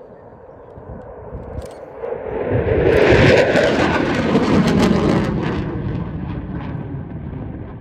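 Eurofighter Typhoon's twin EJ200 turbofans as the jet flies overhead: a jet roar that swells to a loud, crackling peak about three seconds in, drops in pitch as it passes, then fades.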